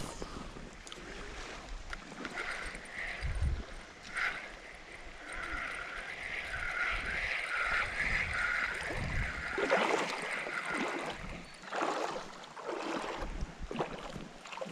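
Shallow creek water running and splashing, with a wavering high drone through the middle and a few short splashes near the end.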